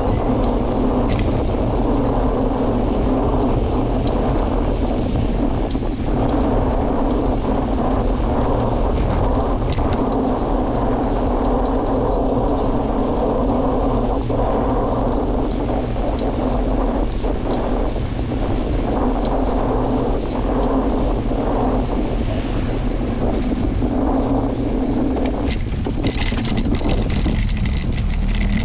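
Steady wind noise rumbling on the microphone of a camera moving along a street, with a steady low drone underneath.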